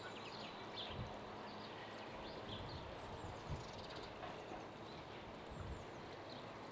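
Rural outdoor ambience with small birds chirping now and then and a few soft low knocks.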